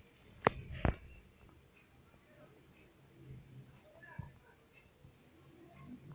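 A cricket chirping steadily in high, even pulses, about five a second. Two sharp clicks stand out about half a second and a second in.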